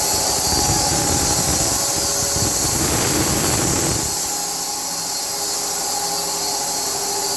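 Band sawmill running through a log cut, with a steady high hiss and whine from the machine. A lower rumble under it drops away about four seconds in.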